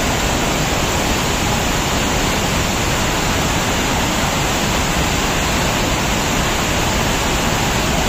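Loud, steady rush of the Kaveri River's whitewater rapids churning over rocks.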